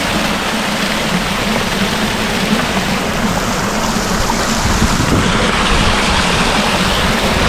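Waterfall water rushing and splashing over rocks: a loud, steady hiss that swells slightly after about five seconds.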